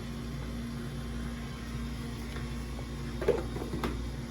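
Steady hum of kitchen equipment with one continuous tone, and two short clinks or knocks a half-second apart about three seconds in.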